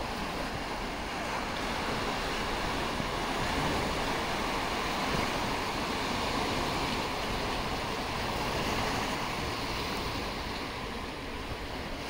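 Small sea waves breaking and washing up a sandy beach: a steady wash of surf that swells and eases gently, with wind rumbling on the microphone.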